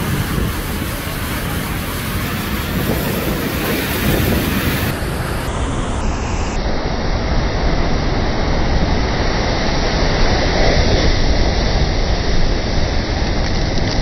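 Heavy sea surf crashing over shore rocks: a loud, continuous rush of breaking water with a deep rumble, mixed with wind buffeting the microphone.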